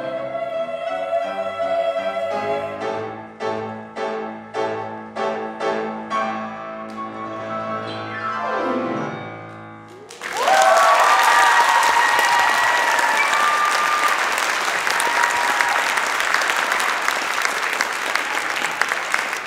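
Women's choir holding a chord over piano, then punchy piano chords struck in a steady rhythm and a downward glide as the song ends. About ten seconds in, the audience starts clapping and cheering, with a few whoops, and keeps on applauding.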